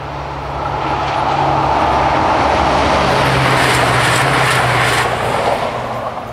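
A short regional passenger train passes over a level crossing at speed: a rush of wheel and rolling noise swells up, carries a quick run of wheel clicks over the crossing rails past the middle, and dies away as the train leaves.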